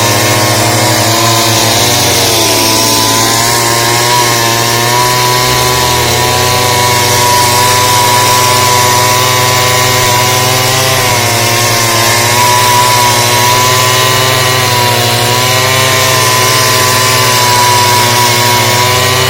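Two-stroke chainsaw running at high revs while cutting, its pitch dipping briefly about two to three seconds in as it bogs under load, then holding steady.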